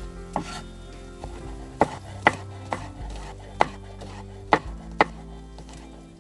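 Chef's knife slicing garlic cloves on a wooden cutting board: about eight sharp, irregularly spaced knocks of the blade striking the board.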